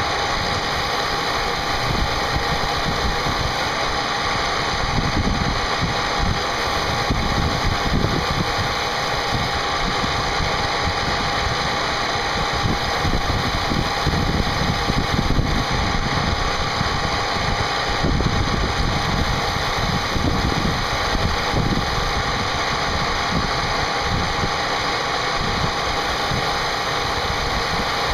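CNC machine cutting a part: a steady, continuous spindle whine over rough cutting noise.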